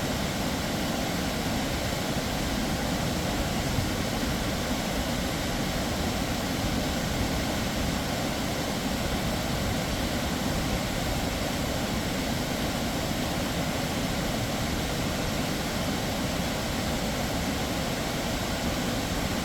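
Snoqualmie Falls' high plunge of water: a steady, unbroken rushing roar, deepest in the low end, with no change through the whole stretch.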